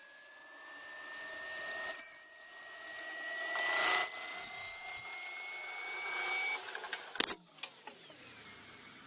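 High-pitched whine of a machine tool's motor, slowly rising in pitch, with louder swells about two and four seconds in. It cuts off sharply about seven seconds in, and a fainter whine falls away after it.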